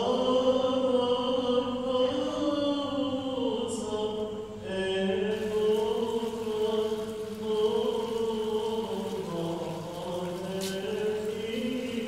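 Slow Orthodox church chant: several voices holding long notes that step slowly up and down over a steady low held tone.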